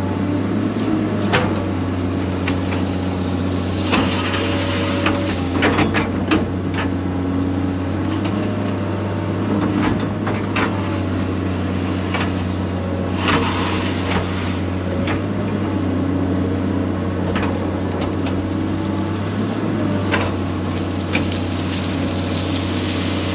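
Excavator engine running steadily while it clears brush, with many sharp cracks and knocks of wood and branches breaking scattered throughout.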